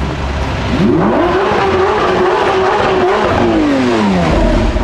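Race car engine revving: the pitch climbs about a second in, holds high, then falls away near the end.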